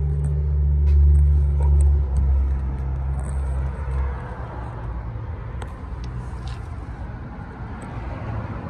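A 1972 Ford pickup's engine running with a deep steady hum that is loudest about a second in. The hum fades out about four seconds in, leaving a broad rumble.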